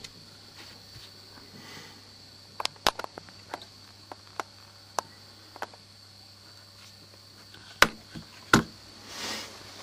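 Keys and the Chubb changeable lever lock being handled: scattered sharp metallic clicks and clacks, a quick cluster a few seconds in and the two loudest near the end.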